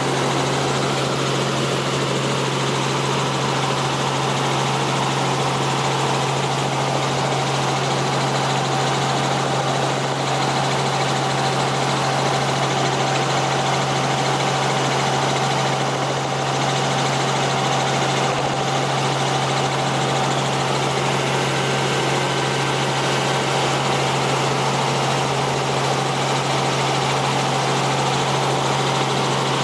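Helicopter in level flight heard from inside the cabin: a steady engine and rotor drone, with a constant low hum and a thin steady tone above it, unchanging throughout.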